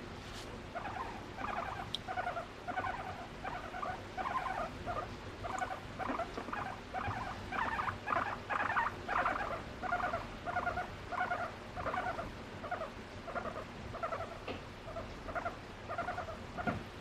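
Abyssinian guinea pig making a steady run of short, pulsed notes, about two a second, as she is stroked: the contented sounds of a guinea pig enjoying being petted. They are loudest about eight seconds in.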